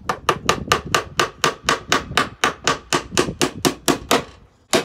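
A hammer driving nails into wooden floorboards: a steady run of rapid blows, about four a second, that stops just after four seconds, then one more blow at the end.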